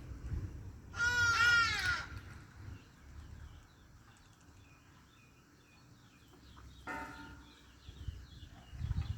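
Hadeda ibis calling: a loud, raucous burst of quickly repeated harsh notes about a second in, and a shorter, fainter call near the end.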